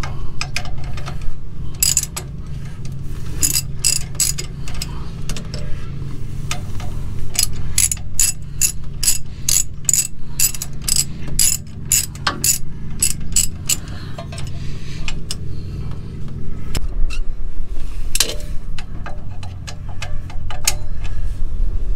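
Hand ratchet clicking in quick runs as the nut on the lower mount of an F550's front shock absorber is loosened, with a steady low hum underneath.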